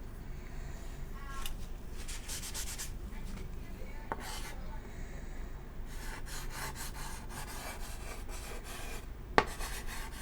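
Chalk scratching on an old chalkboard as words are written, in several scratchy runs of strokes with short pauses between them, and a sharp tap about four seconds in and another near the end.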